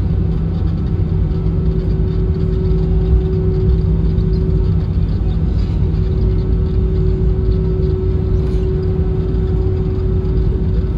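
Cabin noise inside an Airbus A320-216 taxiing on the ground, heard from a seat over the wing. A steady low rumble with a steady hum tone from its CFM56 engines running at low taxi power.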